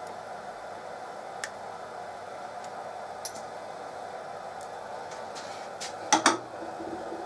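Light metallic clicks and taps of steel slip gauges being handled and pressed against a dowel pin and the workpiece, a few faint ones and then a louder double clack about six seconds in, over a steady background hum.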